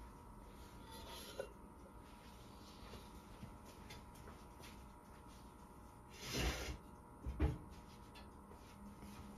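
Quiet room with a faint steady hum, broken by two brief handling noises a little past the middle, about a second apart, the first one longer.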